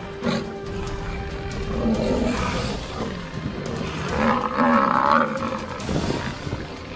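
Lionesses growling and snarling, loudest about four to five seconds in, with background music underneath.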